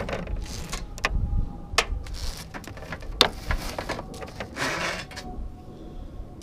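Wire being pulled and worked out of its aluminum sheathing by hand: scraping, sliding rustles of metal, with a few sharp clicks.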